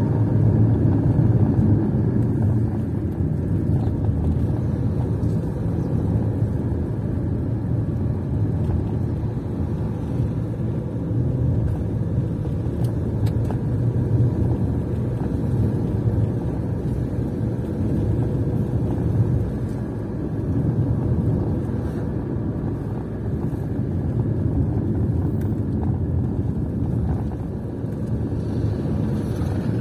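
A moving car's engine and road noise: a steady low drone that swells and eases a little as it drives.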